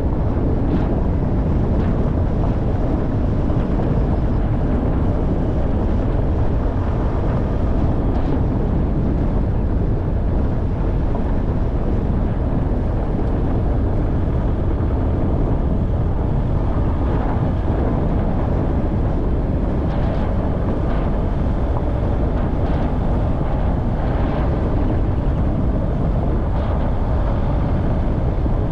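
Off-road vehicle driving over rough ground: a steady low rumble of engine and tyres, with a few faint knocks in the later part.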